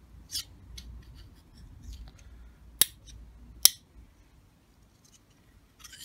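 Steel screwdriver clicking against the magnetic rotor of a washing machine drain pump as the magnet pulls it on: two sharp metallic clicks under a second apart near the middle, with a softer tick near the start and light handling rattle.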